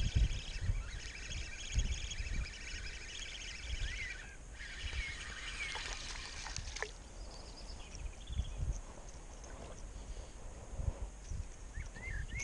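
Birds chirping and singing, with low knocks and bumps from handling a spinning rod and reel.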